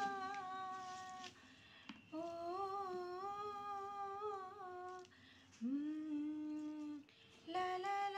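A woman humming a Hindi song melody with no accompaniment. She holds long steady notes in four phrases, each broken by a short pause.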